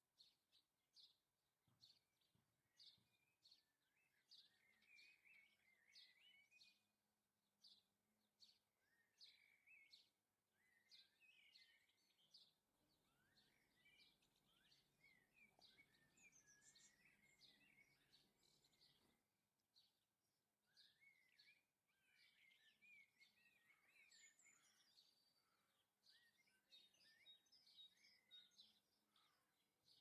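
Faint chirping and twittering of small garden songbirds, a steady run of short high calls and quick warbling phrases.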